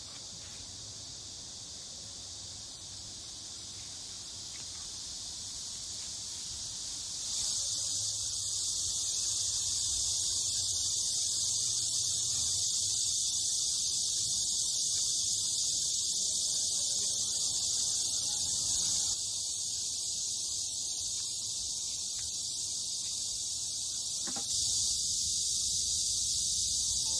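Steady high-pitched insect chorus, louder from about seven seconds in.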